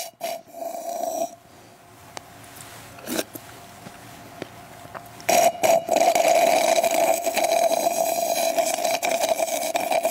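A man slurping a drink through a plastic straw: a short slurp near the start, then one long, loud slurp with a steady tone from about five seconds in.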